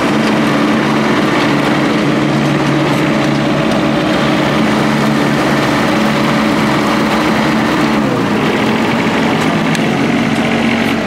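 John Deere 2305 compact tractor's three-cylinder diesel engine running steadily while the tractor drives over grass. About eight seconds in, the engine note drops in pitch.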